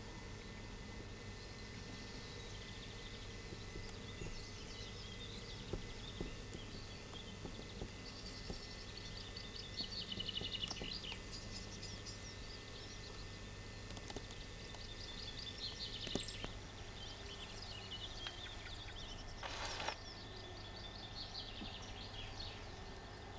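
Small birds chirping on and off over a steady low hum, with a brief rush of noise near the end.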